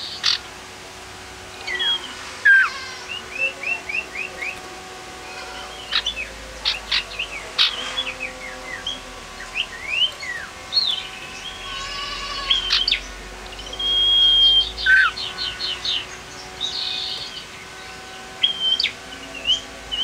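Male common iora (cipoh) calling: short downward-slurred chirps, quick runs of repeated notes, and one long steady whistle about two-thirds of the way through.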